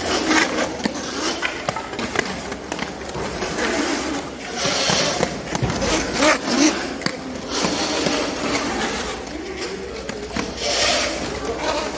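Quad roller skate wheels rolling and scraping on a hard sports-hall floor, in uneven swells with brighter scraping bursts.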